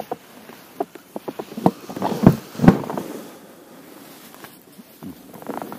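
Irregular knocks and thumps of handling in a small boat as a small zander is landed, loudest and most frequent about two to three seconds in, then quieter.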